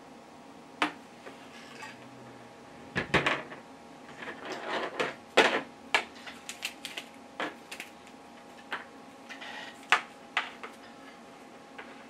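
Handling noise on a desk: audio cable plugs, small metal adapters and a tablet being picked up, moved and set down. An irregular run of clicks and knocks, busiest in the middle, with a few more near the end.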